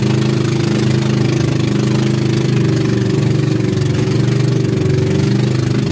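Pump boat's engine running steadily under way: an even, unbroken drone over a steady hiss.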